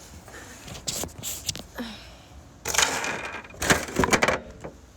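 Slime being squeezed and stretched in the hands, making crackling, clicking noises: a short cluster about a second in and a longer, louder stretch through the second half.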